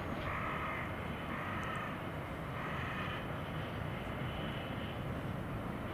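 JNR DE10 diesel-hydraulic locomotive's V12 diesel engine running steadily as the train pulls away over the points. There are three short high-pitched squeals in the first half.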